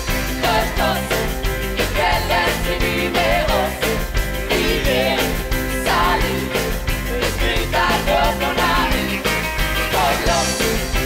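A woman singing with a live band of drums and electric guitar, a song with a steady beat.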